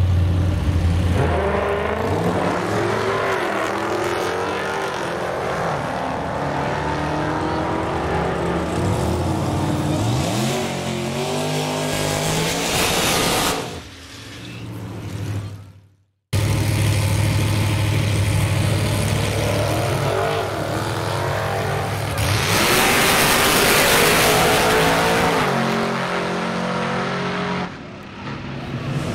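Modern HEMI V8 drag cars running hard: a deep, steady engine rumble that revs and climbs in pitch through the gears as the cars accelerate. The sound cuts out abruptly about halfway through and picks up on another run, which swells into a loud rushing pass a few seconds before the end.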